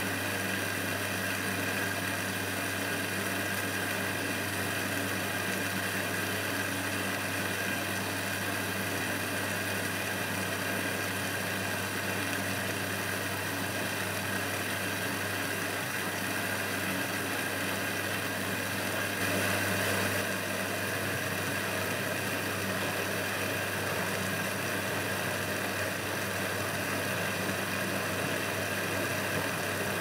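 Eudora Supernova 1002 front-loading washing machine tumbling a wet load of laundry in its wash cycle: the motor and turning drum run steadily with a low hum.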